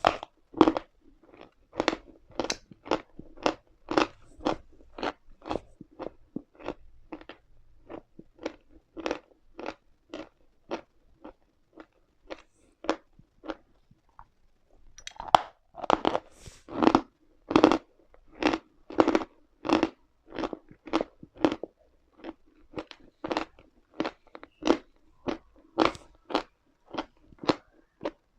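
A person chewing chalk close to the microphone: a steady run of crisp crunches, about two a second, that grows fainter for a few seconds near the middle and then comes back louder.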